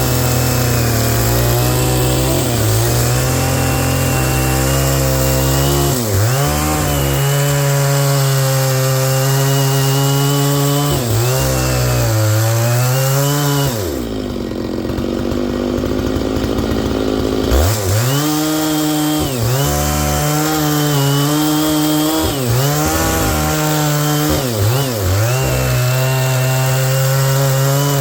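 Stihl MS660 chainsaw with a 36-inch bar and ripping chain, running at high revs through wood, its pitch dipping repeatedly as the chain loads in the cut. About halfway through the engine drops to idle for roughly three seconds, then revs back up and cuts again.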